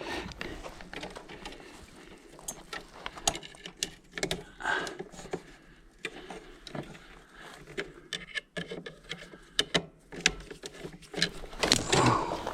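Irregular light clicks, taps and scrapes of hand work inside an electrical sub panel, as a wire is brought to a circuit breaker and fastened.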